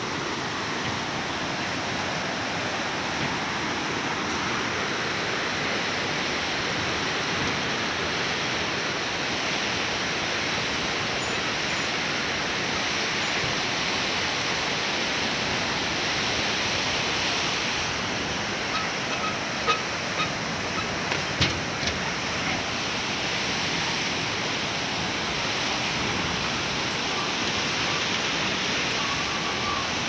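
Fast mountain river rushing over boulders in white-water rapids, a steady wash of water noise. A few short sharp knocks about two-thirds of the way through.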